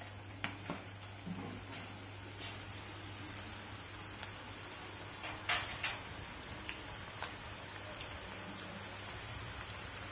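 Batter-coated okra pieces deep-frying in hot oil in a steel kadai: a steady sizzle with scattered pops, and two louder crackles about halfway through.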